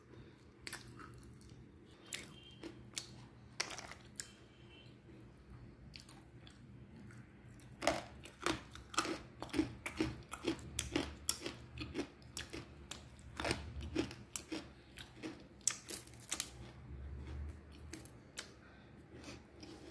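Chewing dry 'black hole' edible clay chunks: crisp crunches as the pieces break between the teeth. They come spaced out at first, then in quick succession from about the middle on.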